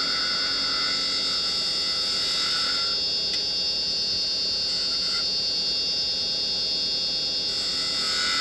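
Wood lathe running steadily with a high whine while a carbide chisel cuts a small spindle. The cutting tone is heard in stretches through the first three seconds, briefly near the middle, and again near the end.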